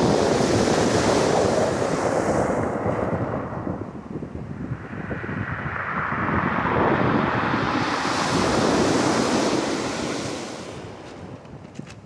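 Waves breaking and washing up a pebble beach in two surges. The first is loud at the start and dies away, and the second swells with a hiss about five seconds in, then fades near the end. Wind buffets the microphone.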